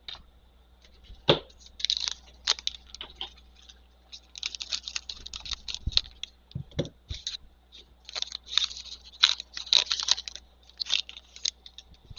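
A trading-card pack's plastic wrapper being torn open and crinkled: a few soft knocks, then runs of sharp, papery crackles.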